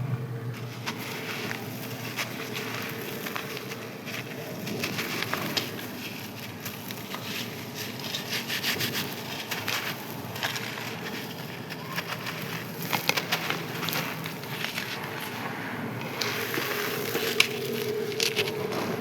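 Crisp dried sand-clay being crushed and crumbled, a dense run of crunches and crackles.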